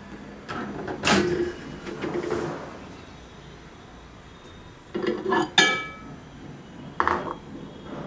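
Microwave oven door latched open with a click and a loud clunk about a second in. Later a bowl of soup clatters and clinks against the glass turntable as it is lifted out, with a short ringing clink and one more knock near the end.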